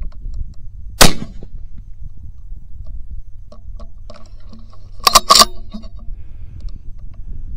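A single gunshot about a second in: one sharp, very loud crack with a short ringing tail, close to the camera. About four seconds later comes a quick cluster of loud clacks and rattles.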